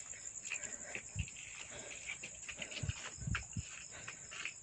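Goats moving about close by, their hooves clopping and scuffing on hard ground with a few soft thumps, over a steady high chirring of crickets.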